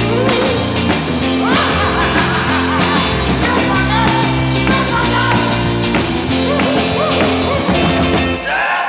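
Background music with a steady bass line and drums; the bass drops out just before the end.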